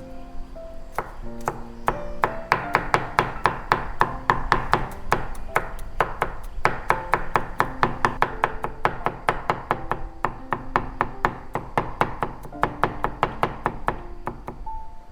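Kitchen knife chopping rapidly on a wooden cutting board, an even run of about four to five strokes a second, with soft instrumental music underneath.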